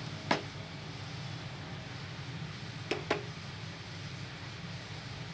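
Hard plastic clicks from the red light-up push-buttons on a baby walker's toy tray being pressed: one click about a third of a second in, then a quick double click about three seconds in, over a steady low hum.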